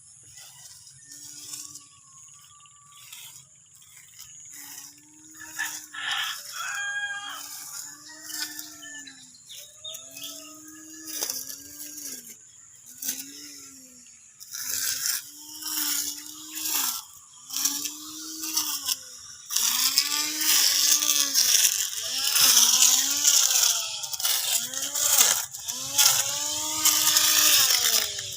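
Cordless electric lawn mower motor switched on in repeated short bursts, its whine rising and falling in pitch each time. From about twenty seconds in, the bursts come with a loud hiss.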